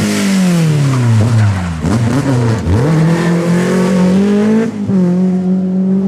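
Rally car engine passing close: its note falls steadily for about three seconds as the car slows, with a couple of quick throttle blips near the bottom. It then climbs back up and holds a steady high note as the car accelerates away.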